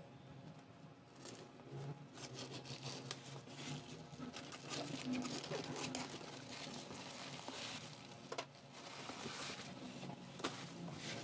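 Crinkling and tearing of a plastic poly mailer bag as it is cut with scissors and ripped open by hand, with many small crackles and clicks of handling as the taped box inside is pulled out.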